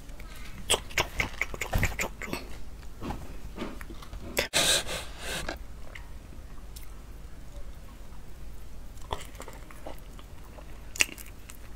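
Close-up chewing sounds of durian being eaten, with scattered small mouth clicks and a louder noisy burst about four and a half seconds in.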